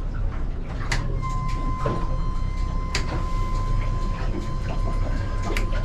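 Yamaha F300 outboard running at slow speed, heard as a steady low rumble inside the boat's enclosed cabin, with a thin steady whine over it and a few sharp clicks and knocks.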